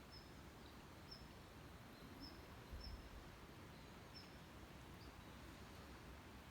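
Near silence: faint outdoor ambience with a short, high chirp about once a second over a low, even background noise.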